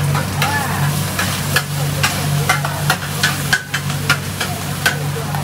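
Stir-frying in a wok: a metal spatula strikes and scrapes the wok at an irregular pace, about one or two clangs a second, over a steady sizzle of frying food and a low, steady hum.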